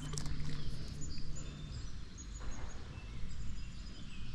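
Small birds chirping in short, high calls scattered throughout, over steady low outdoor background noise.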